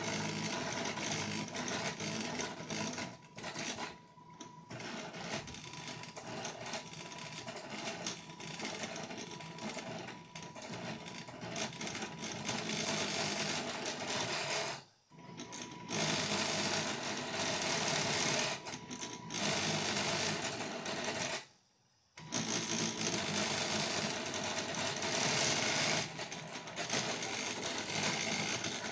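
Homemade 3D printer built from recycled inkjet printer parts running a test print: its salvaged motors whir and buzz continuously as the print head and bed move. The sound stops briefly twice, once about halfway through and again about three quarters of the way through.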